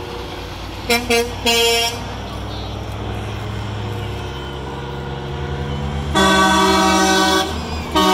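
Semi-truck air horns: two quick toots and a slightly longer blast about a second in, then a long blast of just over a second about six seconds in, with another starting near the end. Under them a truck's diesel engine rumbles, growing louder as it approaches.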